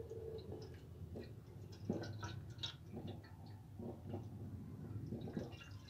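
Milk pouring in a thin stream into a metal pan, with faint irregular splashing and pattering as it spreads over the bottom, over a low steady hum.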